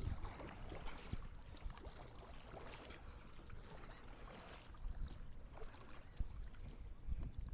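Kayak paddle strokes swishing and splashing in the water, about one every two seconds, over a low wind rumble on the microphone.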